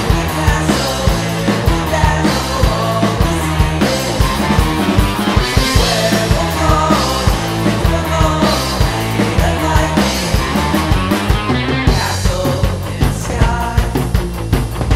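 Psychedelic punk rock music: a full band playing, with a drum kit beating steadily under a stepping bass line.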